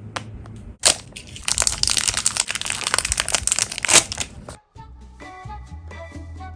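Foil packaging crinkling loudly as it is handled and opened, a dense crackle for about four seconds that cuts off abruptly. Background music with clear notes follows.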